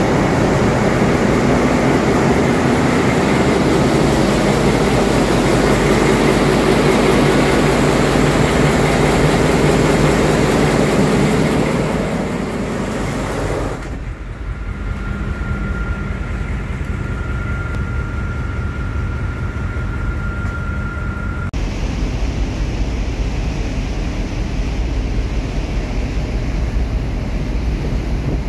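Loud, steady machinery noise of a container ship's engine room with diesels running. About halfway through it cuts to a much quieter hum with a steady high electrical whine from a switchboard room, then to a low rush of wind and sea on the open deck.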